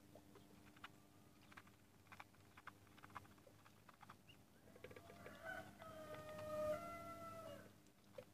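Muscovy ducklings pecking at crumble feed in a plastic dish, their bills making scattered soft clicks. From about five seconds in a rooster crows once, the loudest sound, lasting about two and a half seconds and dropping at the end.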